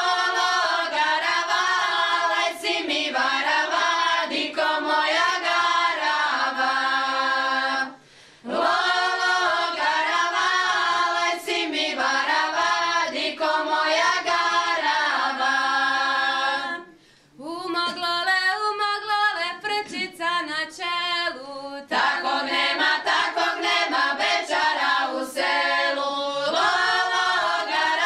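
Group of women singing a traditional Šokac folk song a cappella, several voices singing together. The singing pauses briefly twice, at about 8 and 17 seconds in, between phrases.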